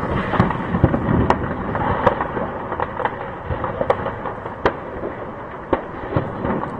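Gunfire and explosions: a dense, continuous crackle of pops, with sharper, louder cracks at irregular intervals, about one to two a second.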